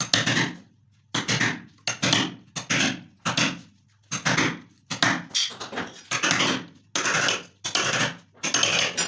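Hammer repeatedly striking a chisel that cuts into a wooden board, about two blows a second, each a sharp knock with a short ring.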